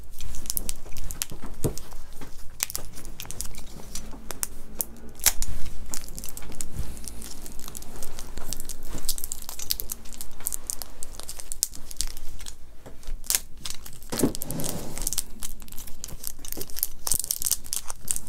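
Plastic bubble-wrap packaging crinkling and tearing as it is cut open with a craft knife and pulled apart, in dense, irregular crackles.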